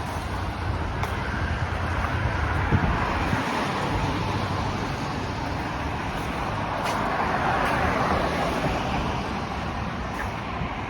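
Steady city road traffic noise, a wash of passing cars that swells about two-thirds of the way through.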